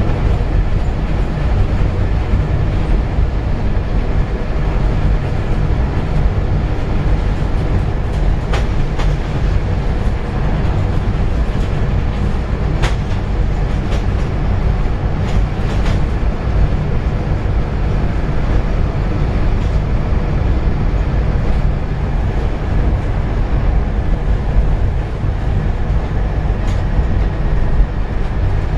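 Inside a Scania K230UB single-deck bus on the move: the rear-mounted five-cylinder diesel engine and the road noise give a steady low rumble, with a few sharp rattles and clicks from the bodywork in the middle.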